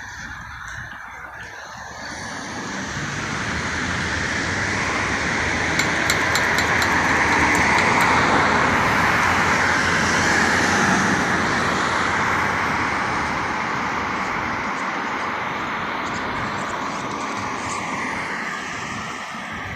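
A road vehicle driving past on a nearby street: engine and tyre noise swells over several seconds, is loudest about eight seconds in, then slowly fades away.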